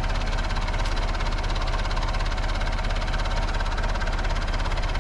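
Backhoe's diesel engine running steadily at a constant speed.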